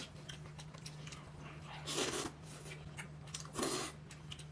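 A person eating close to the microphone, with two short bursts of mouth noise about two and three and a half seconds in, over a faint steady low hum.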